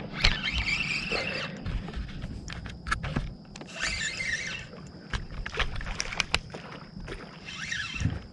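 A hooked speckled trout being landed at the side of a kayak: three noisy bursts of about a second each, with scattered clicks and knocks from handling between them.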